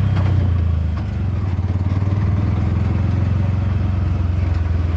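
Bajaj Maxima auto-rickshaw's single-cylinder engine running steadily under way, heard from inside the cab, with a brief dip in level about a second in.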